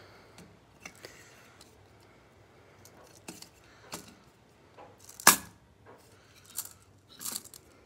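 Scattered short plastic clicks and taps as a toy candy gas pump dispenser is handled, its side crank and base outlet worked by hand. One sharp click about five seconds in is the loudest.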